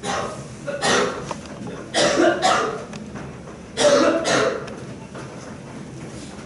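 A person coughing close to the microphone: about six harsh coughs in three short fits over the first four and a half seconds.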